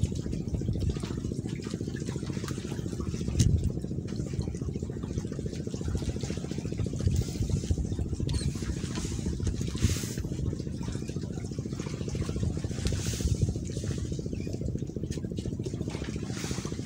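Wind buffeting the microphone over open sea: a steady low rumble with a few louder gusts, about three and a half, ten and thirteen seconds in.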